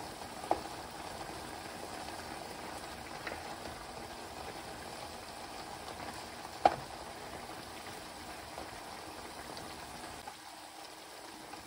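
Chicken simmering in soy sauce broth in a nonstick pan, a steady bubbling sizzle, as a wooden spatula stirs and turns the pieces. A few sharp knocks of the spatula against the pan, the loudest about six and a half seconds in.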